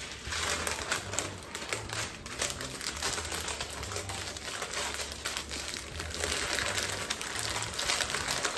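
Parchment paper crinkling and rustling as it is rolled and pressed around a sticky peanut butter and cereal mixture to shape a log, a dense run of small irregular crackles.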